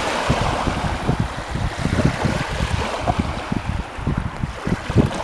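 Small lake waves breaking and washing onto the shore, with wind buffeting the microphone in irregular low rumbles.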